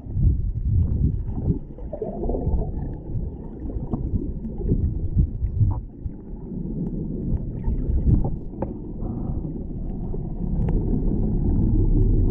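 Muffled water sloshing and gurgling, a low uneven rumble heard through a GoPro's waterproof housing in open ocean water, with a few faint clicks.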